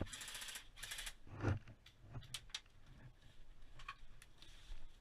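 Airsoft guns firing: a rapid burst of clicking shots in about the first second, then scattered single shots.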